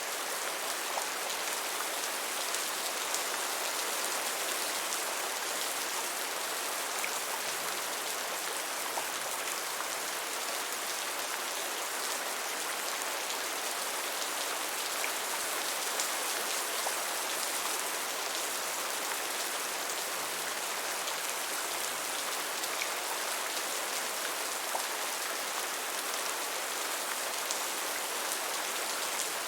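Steady rain falling: a dense, even hiss with faint scattered drop ticks.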